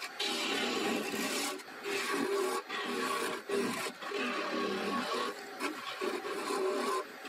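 Turning tool cutting into a spinning wood blank on an Axminster AW355 wood lathe: a steady hissing, scraping cut, in several passes broken by brief pauses.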